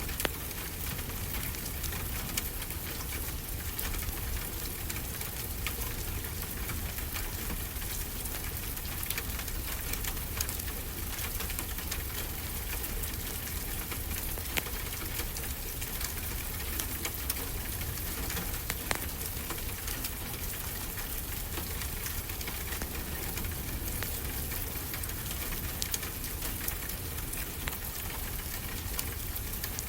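Steady rain falling and pattering on surfaces, with scattered small crackles and pops from a wood fire in a fireplace.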